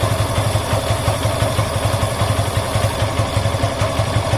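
Yamaha FZ's single-cylinder engine idling steadily in first gear, slowly turning the rear wheel and drive chain while the chain is being cleaned.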